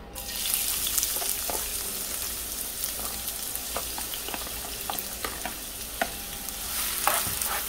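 Diced onion sizzling in hot oil in a frying pan. The sizzle starts as the first spoonful goes in, with scattered clicks of the spoon against the pan.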